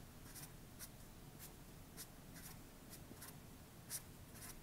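Felt-tip marker drawing on a sheet of paper: faint, short scratchy strokes, about two or three a second, as small circles and connecting lines are sketched, with one louder stroke about four seconds in.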